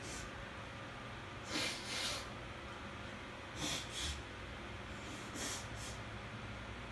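A person with a sneeze fit sniffing hard through the nose, in three quick double sniffs, the last pair fainter.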